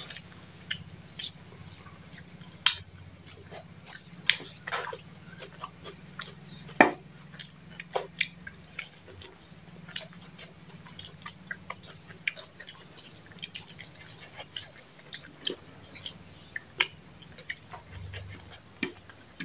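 Close-up eating sounds of two people eating rice and chicken with their hands: chewing with frequent irregular wet smacks and clicks, a few much louder than the rest, over a faint steady low hum.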